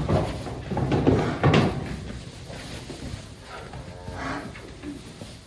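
Calves being penned in a shed: knocking and rattling for the first two seconds or so, then a short calf call about four seconds in.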